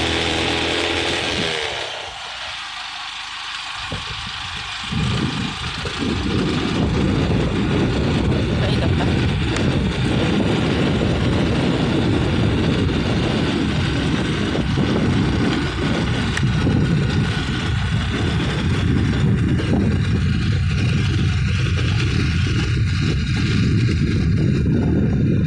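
Motorcycle riding along a road, its engine running under heavy wind noise buffeting the microphone. The sound drops quieter for a few seconds about two seconds in, then the low rumble comes back.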